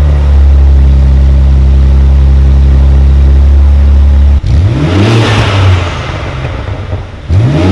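BMW G80 M3's twin-turbo straight-six through a Fi Exhaust valvetronic catback with the valves closed: held at a steady, loud drone for about four seconds, then revved up and back down, with another rev starting near the end.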